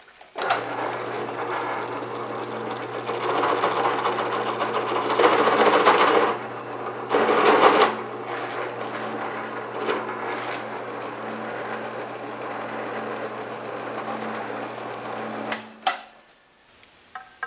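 Bench drill press motor running with a steady hum while the bit cuts into an aluminium flange plate. The cutting gets louder in two spells about a third of the way in. The motor starts about half a second in and switches off near the end.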